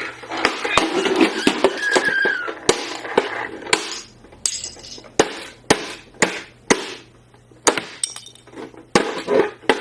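Hard plastic toys clattering and being knocked about: a jumble of rattling for the first couple of seconds, then a run of sharp single knocks, about two a second.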